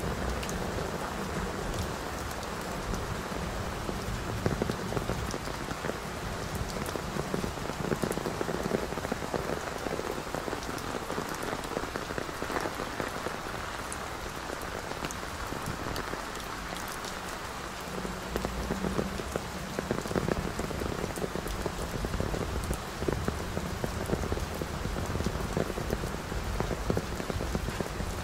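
Rain falling steadily, with many close drops landing as sharp little ticks over an even hiss.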